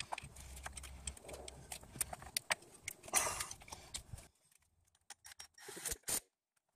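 Irregular clicks and light knocks of hands and a tool handling plastic and metal parts on a car engine's valve cover, as a wiring harness is fitted back into place. The clatter stops about two-thirds of the way through, leaving only a few faint clicks.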